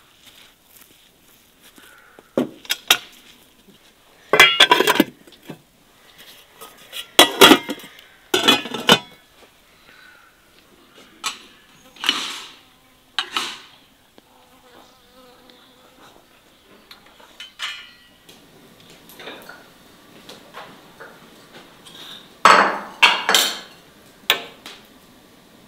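Pots and utensils clattering and knocking in about eight short bursts, with quiet stretches between them.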